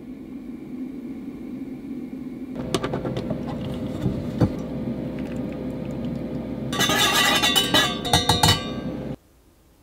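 The lid comes off an insulated steel mug with a few clicks and knocks, over a steady hum. About seven seconds in, rapid ringing metallic clinks sound at the mug, the loudest part, for about two seconds, then they cut off abruptly.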